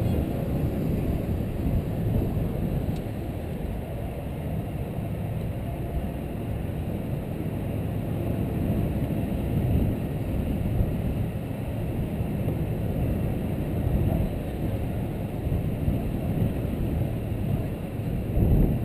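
Wind buffeting an action camera's microphone on the outside of a moving 2013 Jeep Wrangler JK, over a low, steady engine hum as the Jeep drives across beach sand.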